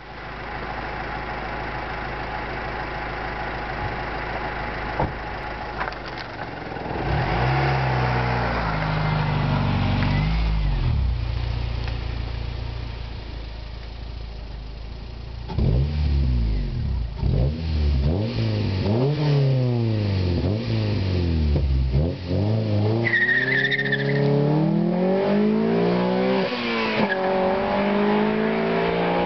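Honda Civic's B18C4 1.8-litre VTEC four-cylinder running through a 2.36-inch OEM-look exhaust. It idles, is revved up and back down about eight to ten seconds in, then about fifteen seconds in accelerates hard away through several gears, the pitch climbing and dropping back at each shift. A brief high squeal comes near the end.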